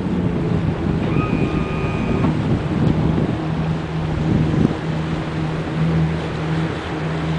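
Boat motor running at a steady cruise with a constant low drone, with wind noise on the microphone and water rushing along the hull.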